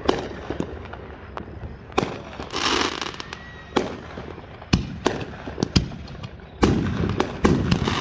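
Aerial fireworks shells bursting in a string of sharp bangs about a second apart. The bangs come thicker near the end, with dense crackling.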